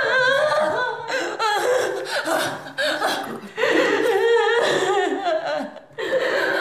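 A woman crying and speaking through sobs, her voice quavering and breaking, with a short pause near the end.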